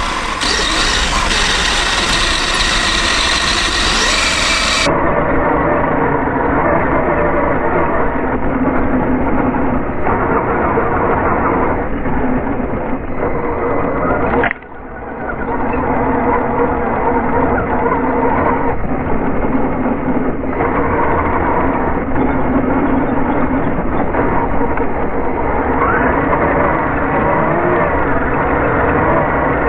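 RC car driving with its motor running, first at normal speed, then from about five seconds in heard slowed down with the slow-motion footage: a duller, lower steady hum. The sound drops out briefly about halfway through.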